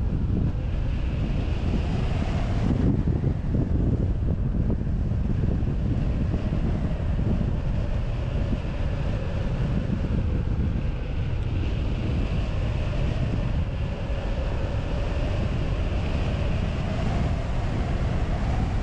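Airflow rushing over a wing-mounted camera's microphone on a hang glider in flight, a steady low buffeting wind noise. A faint whistle wavers slowly in pitch under the rush.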